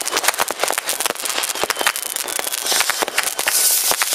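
Many fireworks rockets and firecrackers going off at once: a dense, irregular barrage of bangs and cracks, with a rushing hiss building about three and a half seconds in.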